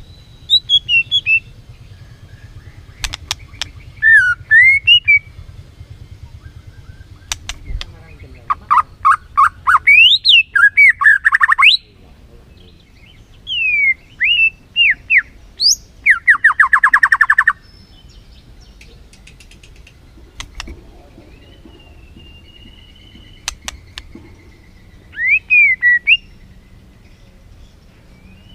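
White-rumped shama (murai batu) singing in bursts of loud whistled, sliding notes and fast trills, with pauses of a few seconds between phrases, over a steady low hum.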